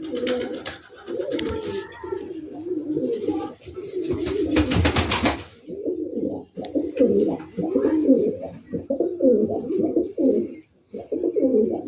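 Domestic pigeons cooing over and over, with a burst of rapid clattering about four seconds in.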